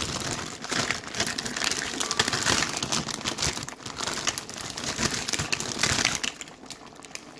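Plastic cracker packet crinkling and rustling as round crackers are tipped out onto fish steaming in a pot. The crinkling dies down about six seconds in.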